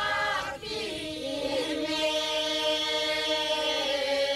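Traditional Greek folk song sung unaccompanied by a small group of women's and men's voices: a short phrase, then one long held note from about a second in.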